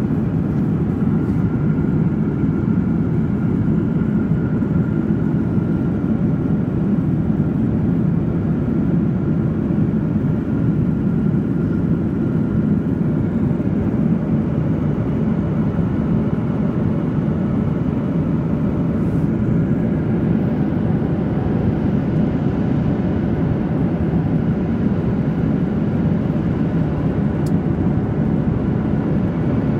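Steady cabin noise of a Boeing 737-800 in cruise: airflow and engine noise making an even low rumble, with a faint steady whine over it.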